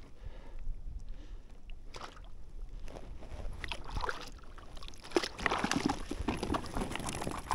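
Water splashing and sloshing with scattered knocks and handling noises, over a low wind rumble on the microphone; the noises are busiest about two-thirds of the way through.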